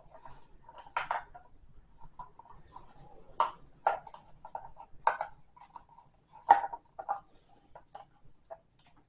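Irregular light taps, clicks and rustles of small objects being handled: twine being wound and tied around a jar lid with a dipper, with a sharper knock about six and a half seconds in.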